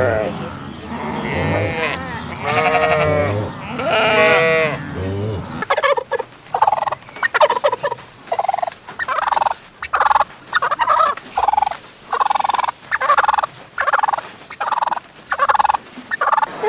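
Livestock bleating in long, wavering calls, then a quick run of short, evenly spaced poultry calls, about two a second.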